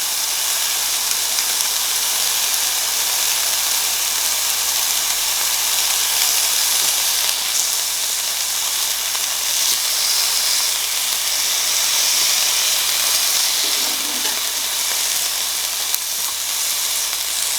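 Raw meat sizzling and spitting steadily on a hot Korean barbecue grill as it cooks, a continuous frying hiss with no letup.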